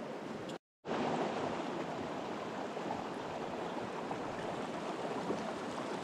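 River water rushing steadily in a continuous hiss, broken by a brief total dropout just under a second in, after which it comes back slightly louder.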